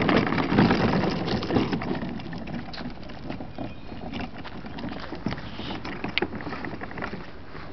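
A red plastic Radio Flyer toy wagon rolling loose off a paved path into grass, its wheels and body rattling and clattering, mixed with the footsteps and rustle of someone going after it. The noise is loudest in the first two seconds, then thins to scattered clicks and rustles.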